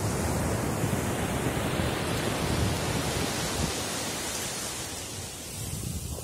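Sea surf: waves breaking and white foam rushing up the beach, a continuous rush that eases off a little toward the end.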